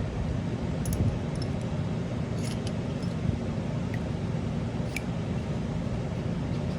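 Steady low background hum, with a few faint small clicks and taps of paintball marker bolt parts being handled while the shaft is lubed.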